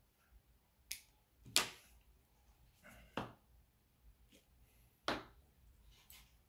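A handful of sharp clicks and taps from handling rig-tying tackle on a tabletop: braid scissors and a spool of coated braid being cut with and set down. There are about five in all, and the loudest comes about one and a half seconds in.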